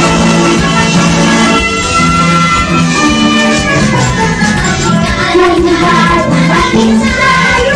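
Music with a steady beat and long held notes.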